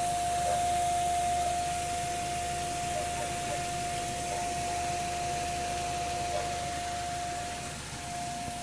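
Steady high-pitched hum from a 2002 Ford Escape, a weird humming that sets in after the car has been driven for some time, over a steady hiss.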